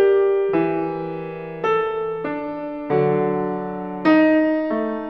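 Slow background piano music: soft chords struck one after another, a new one every half-second to a second, each fading away before the next.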